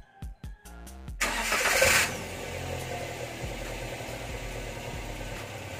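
Music at first, then about a second in a Daihatsu Gran Max pickup's petrol engine starts with a loud burst lasting under a second, and settles into a steady idle through an aftermarket 'Srigala' (wolf) exhaust tip.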